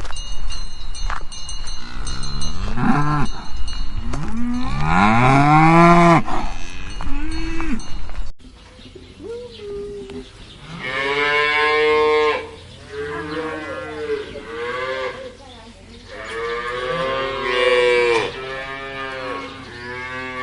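Cows mooing: a series of long calls that each rise and fall in pitch. A steady low rumble runs under the first calls, and about eight seconds in the sound cuts abruptly to a quieter recording with more, higher-pitched moos close together.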